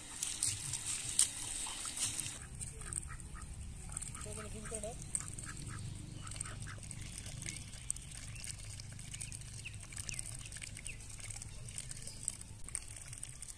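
Domestic ducks quacking, a run of short calls a few seconds in.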